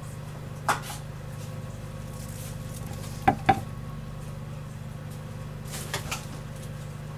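A bamboo cutting board being lifted off the kitchen counter: a click, then two sharp wooden knocks close together about three seconds in, and a few light clicks near the end, over a steady low hum.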